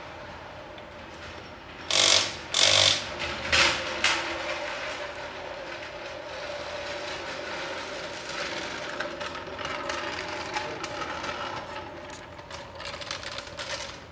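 A tool working the lug nuts on a truck's front wheel: four short, loud bursts of mechanical rattling about two to four seconds in, then lighter, steady clatter.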